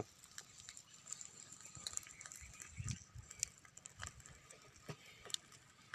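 Wood cooking fire crackling faintly under a covered pot: scattered, irregular small snaps and ticks.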